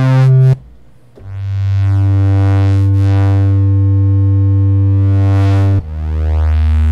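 Kurzweil PC3 synthesizer playing a pulse-width-modulated pad patch, its overtones sweeping and shimmering. A held note cuts off about half a second in, then a low note swells in slowly and holds for about four and a half seconds. Near the end it gives way to a lower note swelling in.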